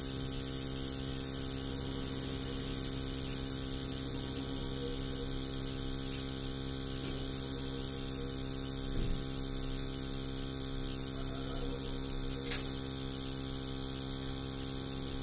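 Small blower fan of a homemade hot air gun, built around a soldering-iron heating element, running with a steady electrical hum while it blows hot air out of the nozzle. A couple of faint clicks come in the second half.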